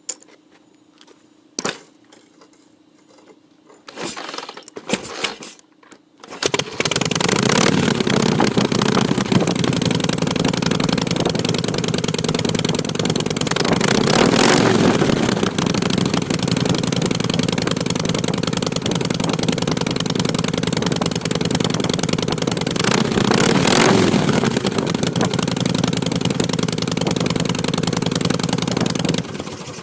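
A couple of clicks, then a Shovelhead Harley-Davidson V-twin is cranked and catches, running loudly through homemade exhaust pipes. It is revved briefly twice and stops near the end.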